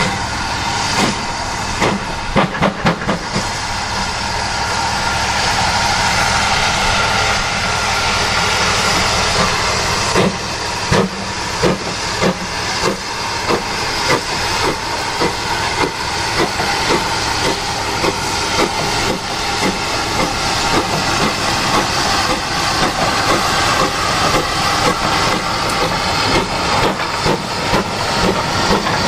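GWR 4575-class small prairie tank locomotive No. 5541 moving slowly, with steam hissing steadily. From about ten seconds in comes a run of sharp clanks, about two a second.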